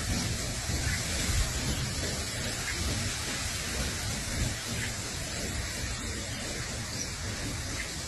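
Steady rushing noise with an uneven low rumble, typical of wind on the microphone outdoors.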